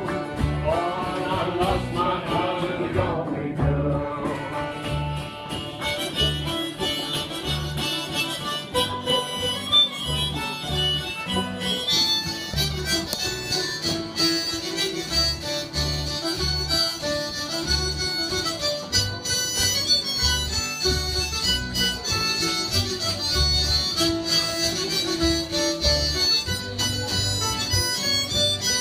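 Live acoustic folk band: plucked upright double bass and acoustic guitars, with a singer for the first few seconds and then an instrumental melody carrying on over the bass and guitars.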